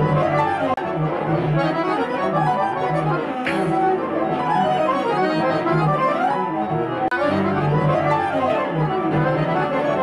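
Instrumental music led by an accordion playing a busy line of notes over low bass notes.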